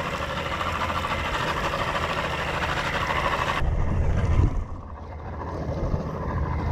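Boat engine running steadily. Just over halfway through, the sound changes abruptly and there is a short, loud, low rumble.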